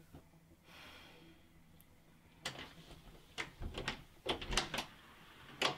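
A door being unlocked and opened: a series of sharp clicks and knocks from the lock and handle, starting about two and a half seconds in, with the loudest knock near the end.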